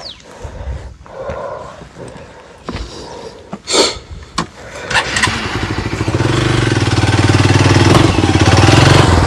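A few sharp knocks, then a motorcycle engine comes in about halfway through and runs steadily, growing louder.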